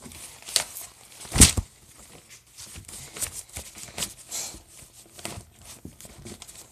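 Paper rustling and handling noises as sketchbook pages are moved, with a sharp knock about a second and a half in.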